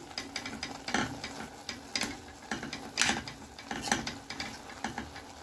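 A metal spoon mashing soft boiled ash gourd pieces in a pot, with irregular scrapes and clinks of the spoon against the pot, about one sharper clink each second.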